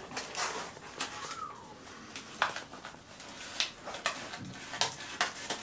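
Scissors snipping through paper wrapping around a potted cactus, with paper crinkling and scattered sharp clicks. A brief falling squeak about a second in.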